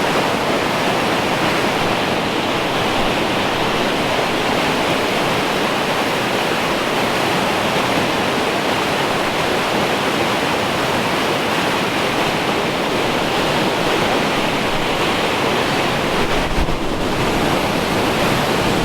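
Waterfall and creek water rushing, a loud, steady wash of noise, with a brief low thump near the end.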